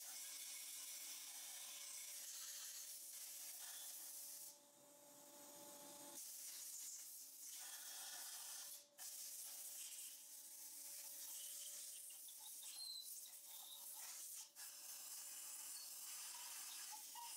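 Compressed air hissing from a blow gun as it blows out a cleaned aluminium cylinder head, in long blasts with a break about four and a half seconds in and brief cuts near the middle and toward the end. A faint steady hum sits beneath.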